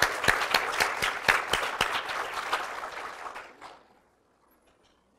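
Audience applauding, the clapping thinning out and dying away after about three and a half seconds.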